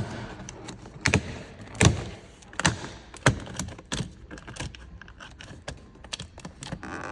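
Irregular sharp plastic clicks and knocks, roughly one every half second to second, from hands working the interior door handle trim of a BMW 5 Series door as it is unclipped.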